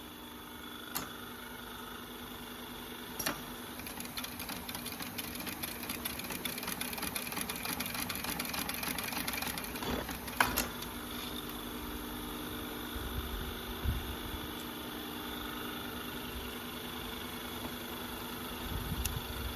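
Heavy-duty Adler 205 cylinder-arm lockstitch sewing machine stitching rapidly for about seven seconds, starting and stopping with a sharp click, the loudest at the stop. Its motor hums steadily throughout, with a few low thumps near the end.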